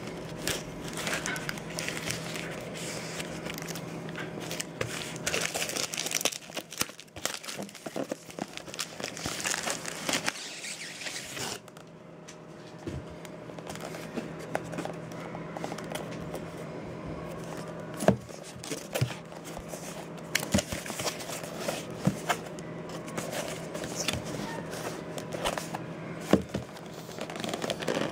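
Crinkling and crackling as a taped postal mailer is handled and torn open by hand, for about the first eleven seconds. After that comes quieter handling of a cardboard box, with scattered taps and knocks.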